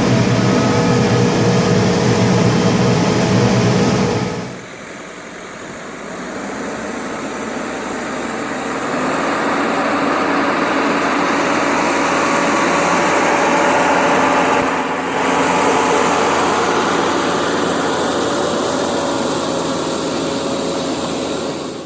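New Holland T4.95 tractor's four-cylinder diesel engine running steadily under load while dragging logs. About four seconds in the sound drops abruptly, then builds back up over several seconds and holds steady.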